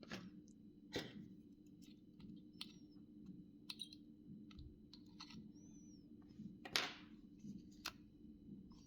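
Irregular small clicks, scrapes and a few short high squeaks of a Samsung SGH-2100 mobile phone's plastic housing and parts being worked apart with small tools. The loudest scrapes come about a second in and near seven seconds, over a steady low hum.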